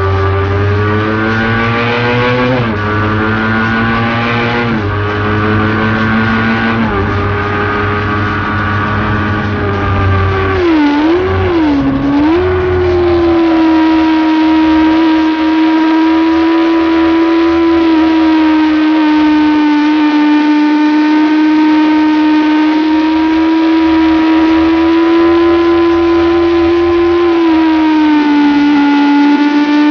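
Motorcycle engine at full throttle heard from on board, the revs climbing and dropping sharply three times in the first seven seconds as it shifts up through the gears. About eleven seconds in the revs dip and recover twice, then hold high and steady through a long corner, easing slightly near the end.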